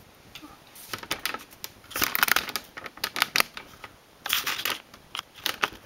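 Clicks and scraping in short bursts, roughly once a second, as the metal needles of a Neva-2 hand knitting machine are moved in the needle bed and the stitches are worked off with a latch tool.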